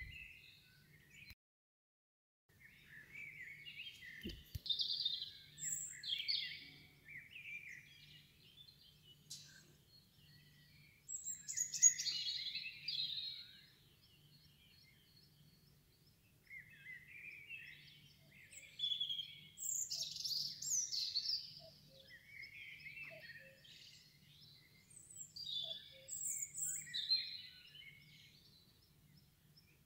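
Small birds chirping and twittering in irregular bursts of quick high chirps and short warbled phrases, with quieter gaps between, over a faint steady low hum. The sound cuts out completely for about a second near the start.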